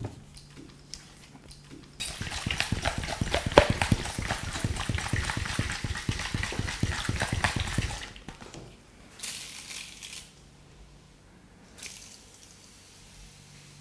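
Hands rapidly tapping and slapping on a head during an Indian head massage: a fast, dense run of slaps starting about two seconds in and lasting about six seconds. A couple of short hissing noises follow.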